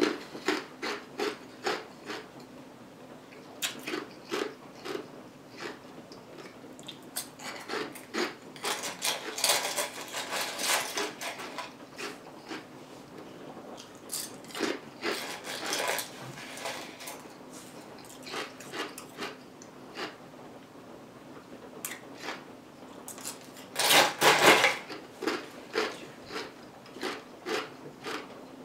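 Ice cubes being crunched and chewed close to the microphone: a run of sharp, irregular crunches, with louder spells of grinding about ten seconds in and again near twenty-four seconds, over a faint steady hum.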